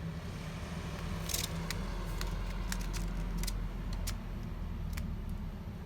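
Irregular sharp clicks and taps from a pet bird moving about its wire cage, about ten in a few seconds, over a steady low hum.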